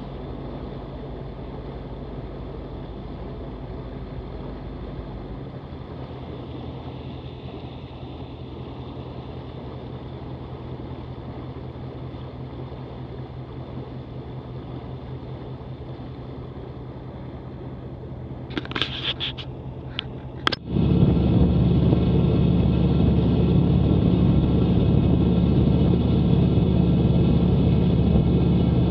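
Fishing boat's engine running at low speed with a steady hum. About two-thirds of the way through there are a few sharp clicks, then the sound jumps abruptly to much louder engine and rushing water as the boat runs at speed through open water.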